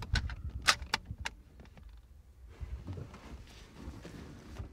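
Small hunting vehicle jolting over rough ground: a run of sharp rattles and knocks over a low rumble for the first second or so, then it goes much quieter, leaving only a faint low rumble.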